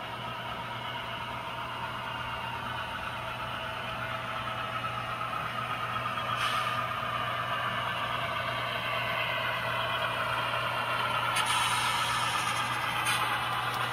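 Model BNSF Dash-9 locomotive pulling a train of double-stack container well cars on the layout track: a steady mechanical running sound that grows louder as the train comes closer, with a few faint clicks in the second half.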